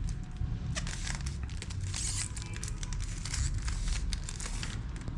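Non-magnetic plastic 3x3 Rubik's cube being twisted by hand, its layers turning with irregular clicking and scraping that runs a little rough, over a low background hum.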